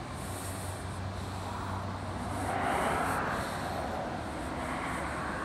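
Steady road traffic noise, with one vehicle passing that swells and fades about halfway through.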